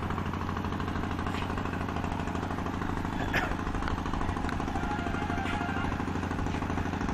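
An engine running steadily, a low drone with a fast even pulse.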